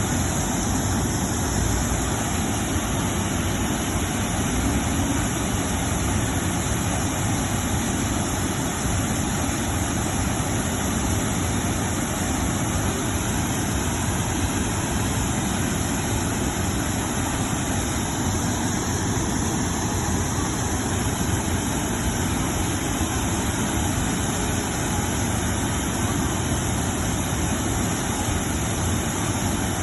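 Vehicle engine running steadily at low revs, an even, unchanging drone with no revving.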